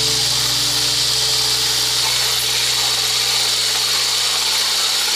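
Electric stick blender with a whisk attachment running steadily at a constant speed, whipping egg whites in a stainless steel bowl into a stiff foam.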